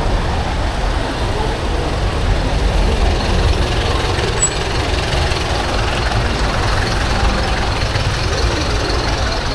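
Dense rush-hour traffic close around a bicycle: bus, jeepney and motorcycle engines idling and running slowly, a steady mix of motor noise over a low rumble.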